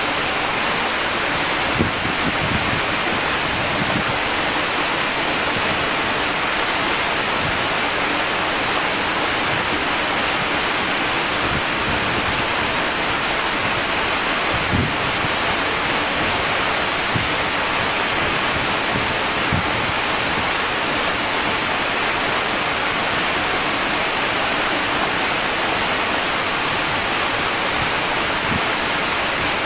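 Large waterfall pouring in a steady, even rush of falling water, with a few faint low thuds of water striking below.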